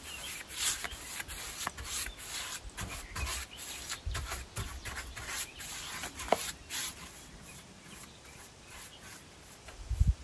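A brush applying wood stain to rough wooden planks: a run of short, scratchy strokes that thins out after about seven seconds. A low bump near the end.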